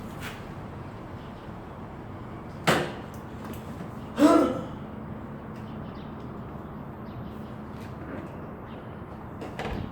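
Two brief loud knocks about a second and a half apart, the second with a short pitched ring, from attempts to kick-start a 110cc SSR four-stroke pit bike that does not fire.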